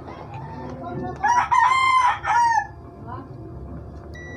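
A rooster crowing once, a call about a second and a half long starting about a second in. A short electronic beep sounds near the end.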